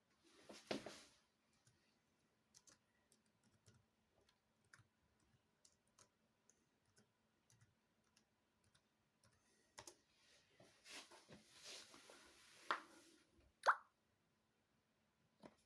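Faint, scattered clicks of a laptop's keyboard while the setup is worked through, with a brief noisy patch about a second in and two sharper, louder clicks near the end.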